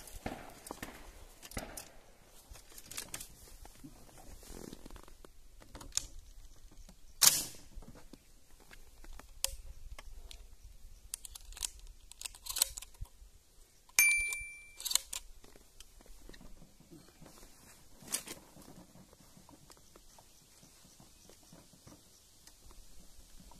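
Shotgun and shells being handled close to the microphone while being loaded and readied: scattered clicks and rustles, a sharp knock about seven seconds in, and a sharp metallic click with a brief ring about halfway through.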